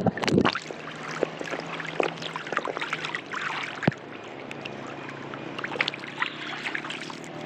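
Sea water sloshing and splashing around a camera moved through shallow water, partly submerged, full of small crackling clicks, with a loud muffled knock right at the start and a sharp click about four seconds in. A faint steady low hum runs underneath.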